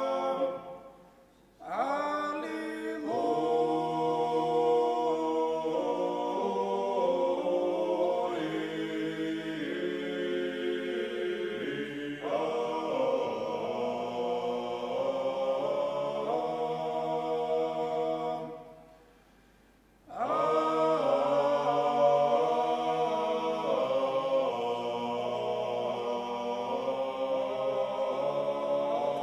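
Male ensemble singing Georgian chant a cappella, several voices holding chords together in long phrases. Twice the singing stops for about a second before the next phrase begins: once about a second in, and again about two-thirds of the way through.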